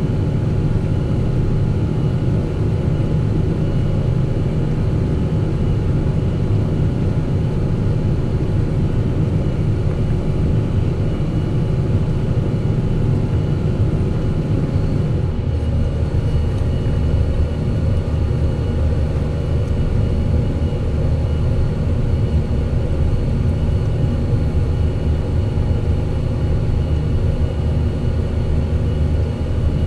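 Fendt 718 tractor's six-cylinder diesel engine running steadily under load while pulling a plough, with a slight change in its note about halfway through.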